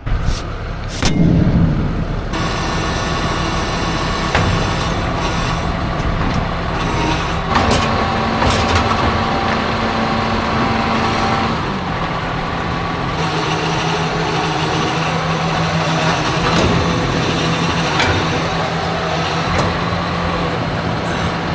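Heavy farm machinery running steadily under a diesel engine, starting suddenly with a louder burst in the first two seconds.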